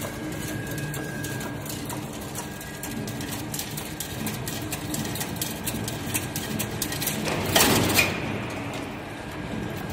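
Automatic chain link fence weaving machine running, a steady hum with frequent short clicks of the wire mechanism. About three-quarters of the way through comes a louder burst of noise lasting about half a second.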